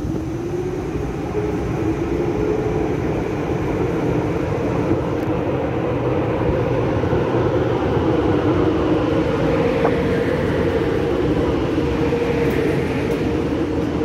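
DB class 111 electric locomotive hauling a double-deck regional train, rolling slowly past along the platform. A steady low hum from the locomotive, wavering slightly in pitch, sits over the rumble of the wheels and gets a little louder over the first few seconds.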